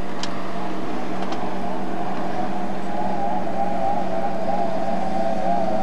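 Tunnel-hull speedboat's engine running at speed across the water: a steady high drone that wavers slightly in pitch and grows a little louder about halfway through, over a steady low hum.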